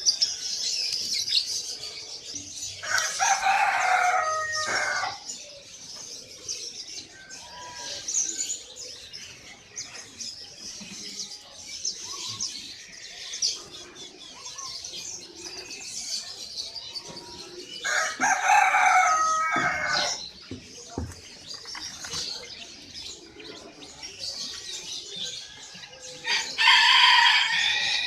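A rooster crowing three times, each crow about two seconds long, over continuous high chirping and twittering from many small songbirds.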